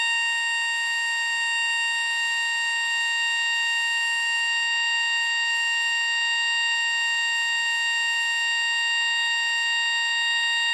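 Model A siren held at full speed in one steady, unwavering wail, sounding the alert for a severe thunderstorm warning.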